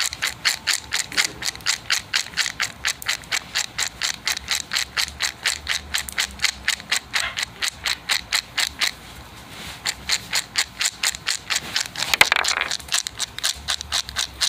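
Dry dog kibble rattling in a bowl as it is shaken in quick, even strokes, about four a second, to coat it with a liquid supplement, with a short pause about nine seconds in.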